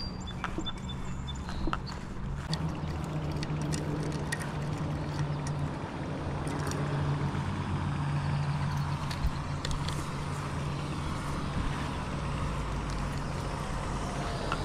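Car engine running steadily at low revs as a small SUV rolls slowly up and idles, a low, even hum with a few light clicks over it.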